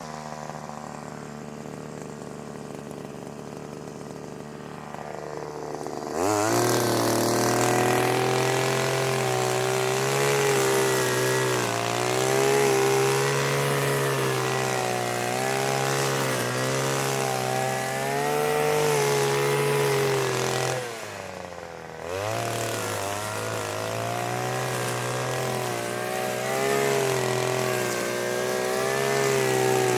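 Petrol brushcutter engine ticking over quietly, then opened up about six seconds in to a loud, high run whose pitch wavers up and down. Around two thirds of the way through the throttle drops back for about a second before the engine revs up again.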